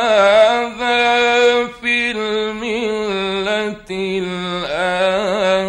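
A man's voice reciting the Quran in the melodic, drawn-out mujawwad style. He sings long, ornamented held notes with wavering pitch, in several phrases separated by short breaks.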